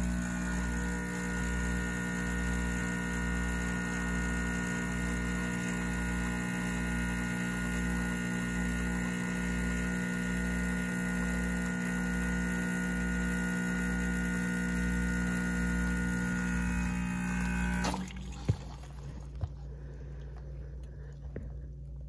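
Espresso machine pump humming steadily while pulling a shot into the cup. The hum stops suddenly near the end, followed by two sharp clicks.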